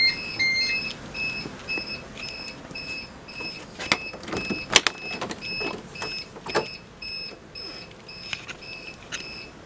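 An electronic alarm beeping at about two short, high beeps a second, with a few knocks and clicks in the middle.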